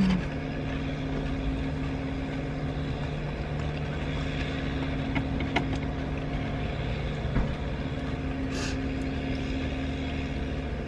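Steady low hum of an idling vehicle engine, with a few faint clicks and one brief rustle near the end.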